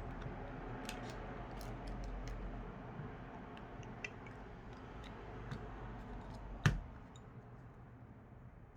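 Scattered faint clicks and taps of small precision tools on a phone's tiny screws and metal parts, with one sharper, louder click about two-thirds of the way in, over a low steady hum.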